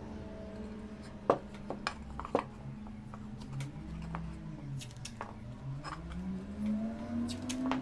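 Ceramic tile pieces being handled on a table: sharp clicks and light knocks as the tile edges meet and are set down, with tape pulled and pressed onto the corners. A steady low drone runs underneath and rises in pitch near the end.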